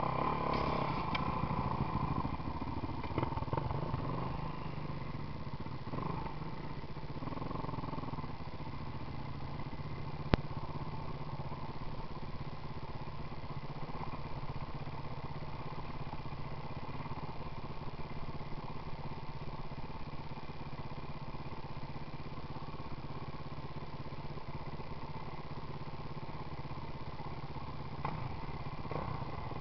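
Kawasaki KX450F dirt bike's single-cylinder four-stroke engine idling steadily, a little louder in the first few seconds, with one sharp click about ten seconds in.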